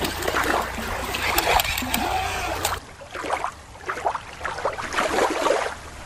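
Shallow water splashing as a plastic toy seahorse is swished through it by hand. About three seconds in the sound drops suddenly to a quieter, duller water sound.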